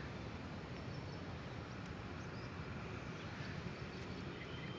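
Steady outdoor background noise with a few faint, short, high chirps.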